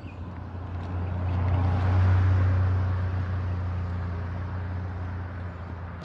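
A car drives past on a paved road, its tyre and engine noise swelling to a peak about two seconds in and then fading as it moves away, over a steady low drone.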